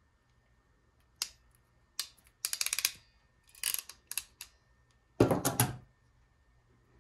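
Klein Tools ratcheting crimper clicking as its ratchet is worked on a blue insulated butt connector. There are a few single clicks, then a quick run of clicks about two and a half seconds in, and a louder snap near the end as the crimp completes and the jaws release.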